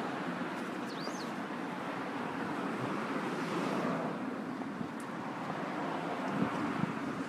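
Road traffic going by: a steady haze of tyre and engine noise that swells as a car passes, about four seconds in.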